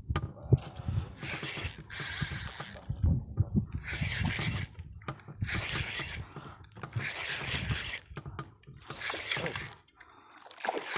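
Spinning reel cranked in short spells, winding in a hooked fish on a bent rod.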